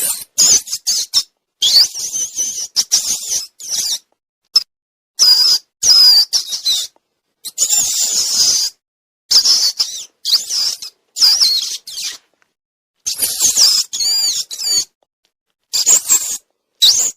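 Rodent squeaks: short, high-pitched chirping calls that slide up and down in pitch, coming in quick clusters with abrupt gaps of dead silence between them, as in an edited sound-effect track.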